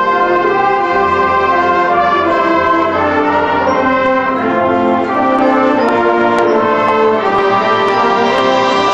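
School concert band playing, with the brass prominent in long held chords that change every second or so.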